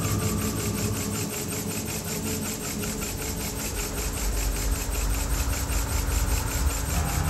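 Lego single-acting two-cylinder steam engine running, a fast, even chuffing, as it drives the model elevator's winch.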